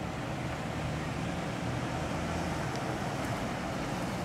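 Pickup truck driving up, a steady engine and tyre sound.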